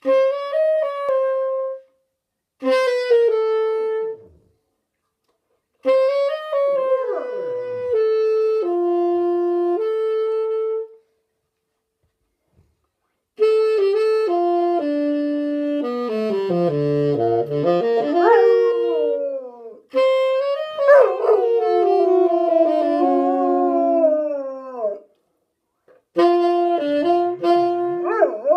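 Saxophone playing slow phrases of held notes with short pauses, while a Bernese mountain dog howls along, its voice sliding up and down in pitch over the notes.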